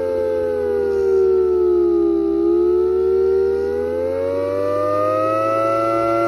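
3D-printed miniature Federal Signal Thunderbolt 1003 siren wailing. Its pitch sags to a low point about two seconds in, then climbs again, over a steady low hum.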